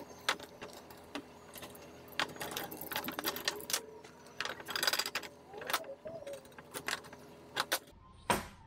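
Hand tools working copper hydraulic tubing and brass fittings: a run of irregular sharp metallic clicks and clinks with some scraping, thickest about five seconds in, and a single louder knock near the end.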